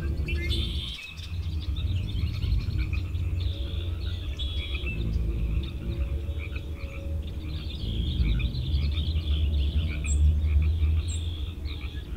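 Nature ambience of many small birds chirping and frogs calling together, over a steady low rumble.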